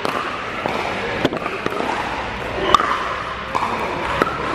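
Sharp pocks of pickleball paddles striking the plastic ball on nearby courts in a large indoor hall: a handful of hits at irregular intervals, with people talking in the background.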